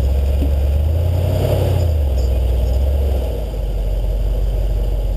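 Off-road 4x4's engine running under load, its revs rising and then falling back, easing off about three seconds in and then running steadily.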